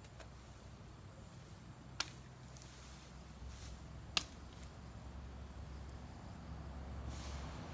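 Two sharp chops of a large cleaver-like chopping knife striking a branch, about two seconds apart, the second louder.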